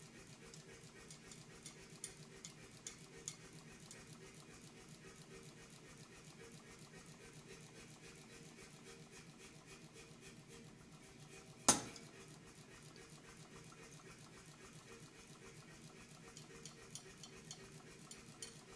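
Light scratches and taps of a steel scribe on a flat steel bar as it is marked out, with one sharp metallic click about twelve seconds in and a few fainter ticks, over a steady low hum.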